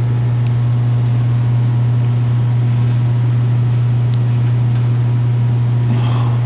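A loud, steady low hum that does not change, with a few faint ticks over it and a brief rustle near the end.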